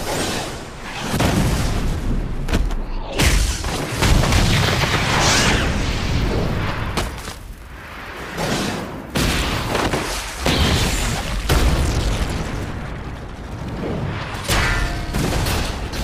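Designed fight sound effects for an animated action scene: a string of booms and heavy impacts, about half a dozen sharp hits, with deep rumbling and swelling whooshes between them.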